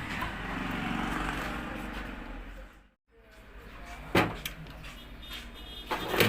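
A steady noisy rumble that cuts off abruptly about halfway. Then one sharp metallic knock and, near the end, a quick run of clicks and taps from hand tools prying and tapping apart the crimped steel casing of a car starter's drive gear.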